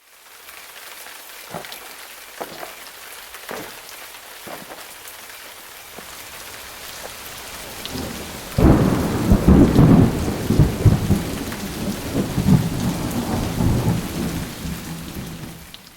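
Steady rain hiss with a few sharp cracks, then about two-thirds of the way in a loud rumbling thunder roll that carries on and fades out near the end.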